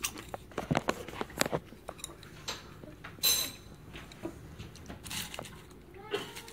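Popcorn crunching as it is bitten and chewed close by, a quick run of crackly crunches in the first second and a half, then a louder one about three seconds in and a few softer ones later. Chopsticks click against the popcorn and the glass bowl.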